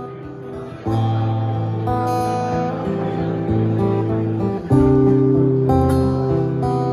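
Two acoustic guitars playing an instrumental intro, chords strummed and left ringing. It starts soft and gets louder about a second in, with another stronger chord a little before five seconds in.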